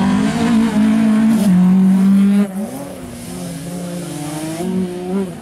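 BMW E36 3 Series coupe rally car's engine running hard at high revs, loud and steady. About two and a half seconds in, the engine note drops sharply in pitch and loudness, then runs quieter, wavering up and down.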